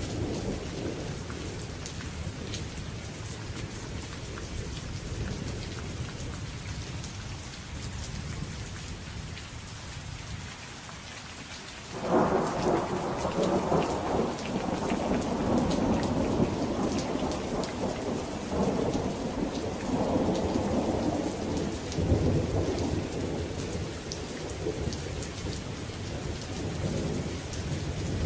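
Steady rain with thunder. A low rumble dies away, then a sudden thunderclap breaks a little before halfway and rolls on in a long, crackling rumble under the rain.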